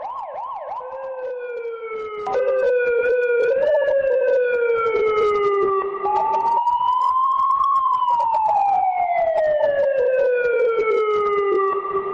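Police patrol car siren: a fast yelp for about the first second, then a slow wail sweeping down, up and down again in long glides. It gets louder about two seconds in.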